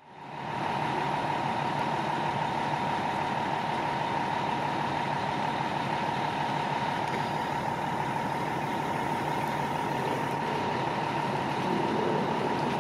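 A steady engine hum with a constant high whine, unchanging throughout.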